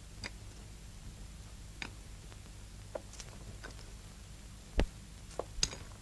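Coins and small objects being handled on a wooden table, making scattered light metallic clicks and clinks, with a duller knock about five seconds in.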